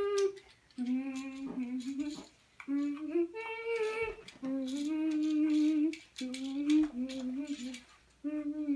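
A young boy humming a string of held notes, each about a second long, with short breaks between them.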